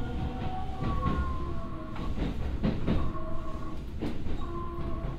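Hokuso Railway Type 9100 electric train running, heard from inside the car: a steady low rumble with flat whining tones that change pitch every second or so, and irregular sharp clicks as the wheels pass over rail joints.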